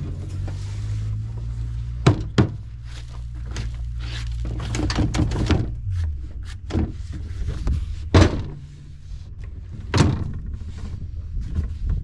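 A motor hums steadily under loud thunks and knocks: two close together about two seconds in, then single ones near eight and ten seconds. The hum drops away about halfway through and comes back near the end.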